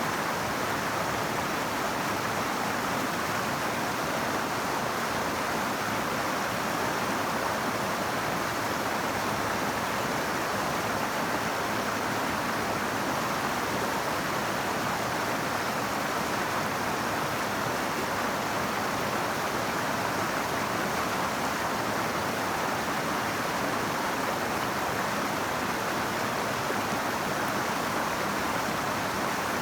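River water flowing and rushing in a steady, even wash of noise.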